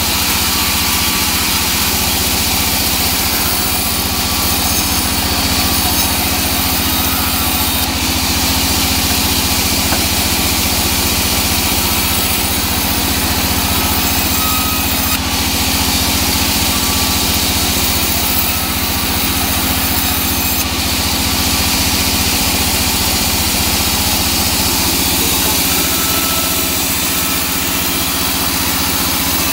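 Large sawmill band saw running steadily and cutting teak wood: the drive hums low and the blade gives a loud high hiss, which changes abruptly a few times.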